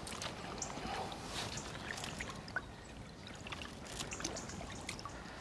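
Shallow canal water running, with many small splashes and drips as a hand in the water releases a chub.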